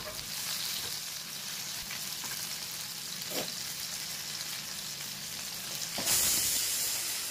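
Masala-coated whole kizhangan (sand whiting) fish shallow-frying in a little oil in a pan, the oil sizzling and crackling steadily, with a single pop a few seconds in. The sizzle grows louder about six seconds in.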